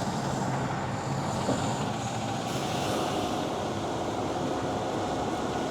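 Front-discharge concrete mixer truck's diesel engine running steadily as the truck creeps into position under an overhead wire.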